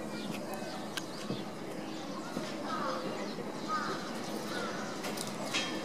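A few short bird calls, rising and falling, over steady outdoor background noise, with scattered light clicks and a brief scraping noise near the end.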